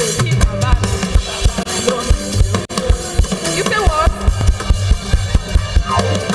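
Live worship band music: a drum kit plays a busy, steady beat of bass drum and snare over low sustained notes.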